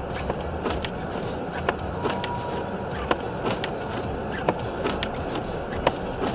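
Steady low rumble inside a car's cabin in a blizzard, with scattered sharp ticks at irregular intervals throughout and a brief faint tone about two seconds in.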